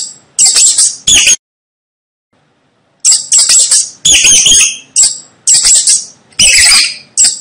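Mice squeaking: shrill, high-pitched squeaks in quick bursts of two or three, with a pause of about a second and a half near the start.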